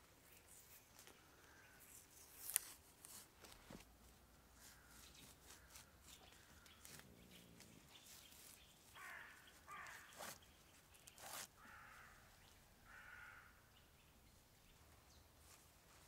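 Quiet woodland handwork: scattered sharp cracks and light scrapes as green saplings are stripped of bark and bent, the loudest crack about two and a half seconds in. A bird gives four short, harsh calls between about nine and thirteen seconds.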